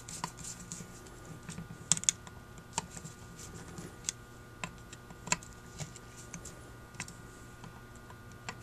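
Irregular small sharp clicks and ticks of a screwdriver working the small screws of a Holley 1904 carburetor, snugging them down.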